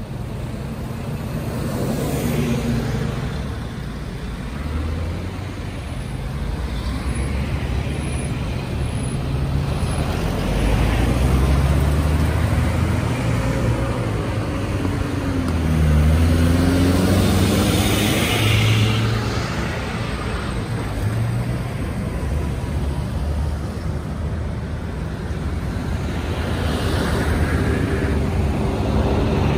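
Road traffic: car, SUV and minibus engines running and passing, with tyre noise. About halfway through, one engine note dips and rises again.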